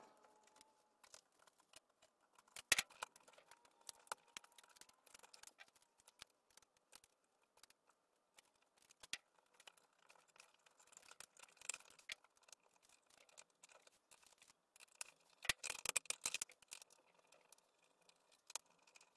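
Faint scattered clicks, taps and scrapes of hands wiring an electrical receptacle: the wires and the outlet's metal terminals being worked, with a denser run of clicking about three-quarters of the way through.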